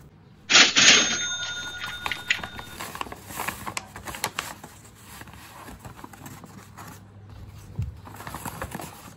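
Kraft paper bag crinkling and rustling as it is handled and opened and a satin scrunchie is pushed inside. The loudest moment is a sharp crinkle about half a second in, followed by many small paper crackles.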